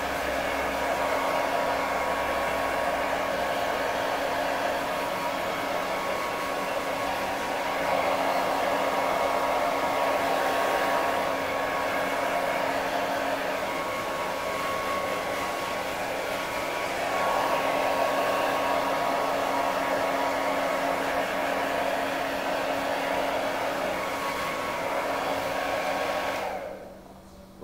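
Handheld hair dryer running steadily: a rush of air with a thin steady whine. It swells a little louder twice and switches off near the end.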